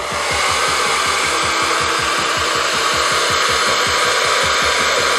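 A hot-air blower switched on and blowing steadily at the thin strands of a 3D-printed 'hairy lion', the hot air used to shape the printed stringing into hair. It starts suddenly and runs at an even, loud rush, with music faintly underneath.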